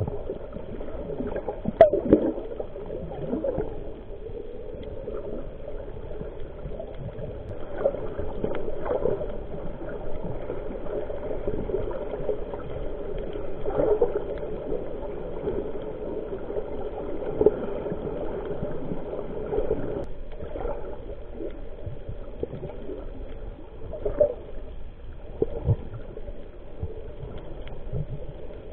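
Muffled underwater water noise recorded by a camera below the surface, a steady dull rush with irregular gurgles and bubble pops.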